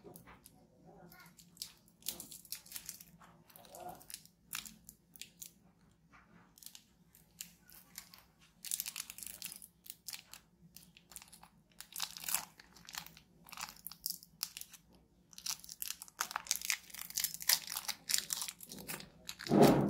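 Plastic lollipop wrapper crinkling and crackling in irregular bursts as it is peeled off by hand, with a louder bump near the end.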